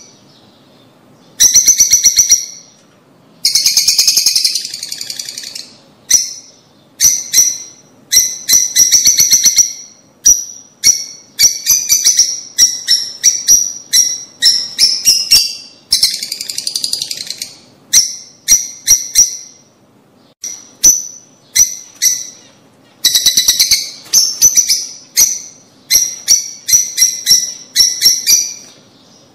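Lovebirds calling: loud runs of short, sharp, high-pitched chirps, coming in bursts of about a second with short pauses between.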